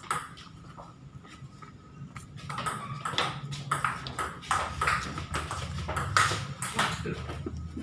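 Table tennis rally: the ball clicking off the paddles and pocking on the table in a quick, even run of sharp ticks, two to three a second, starting about two and a half seconds in.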